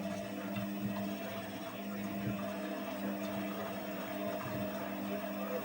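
Washing machine running with a steady motor hum.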